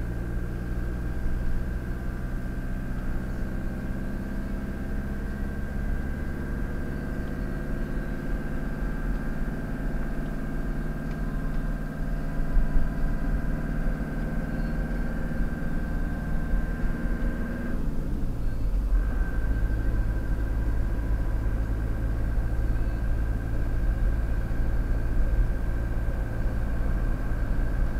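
Car engine and tyre-road rumble heard from inside the cabin while cruising at motorway speed, the engine note climbing slowly. About eighteen seconds in, the engine note drops and a higher steady whine cuts out for a moment, then both carry on at a lower pitch.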